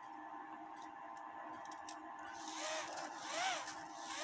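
Cuckoo clock movement under test: a few sharp clicks, then from about halfway an airy hiss with a whistle tone that rises and falls about once a second, the bellows-driven cuckoo pipes sounding.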